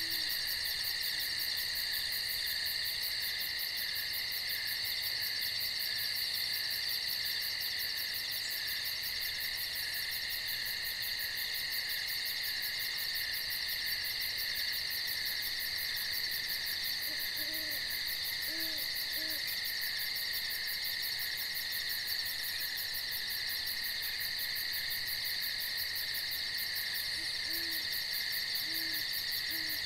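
Steady chorus of night insects trilling without a break. A faint owl hoots in short series of about three low notes: at the start, a little past halfway, and again near the end.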